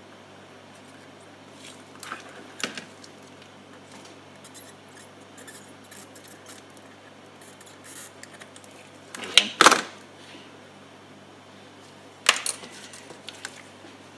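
Small tools handled on a workbench during electronics repair: a few sharp metallic clicks and clatters over a steady low hum, with the loudest cluster about nine and a half seconds in and another sharp click near the end.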